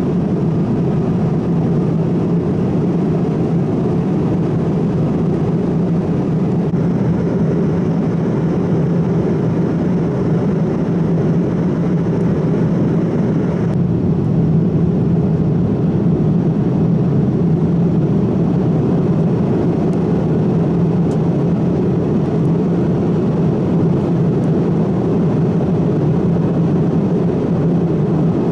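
Steady cabin noise inside a Boeing 787-9 Dreamliner in flight at altitude: a constant low rush of airflow and engine noise, its hiss shifting slightly twice.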